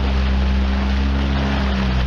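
5 hp outboard motor running steadily, pushing a kayak along, with wash and wind noise; its pitch shifts slightly near the end.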